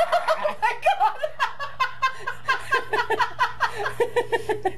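A voice cackling in a long run of quick, high-pitched laughing syllables, a villain's gloating laugh.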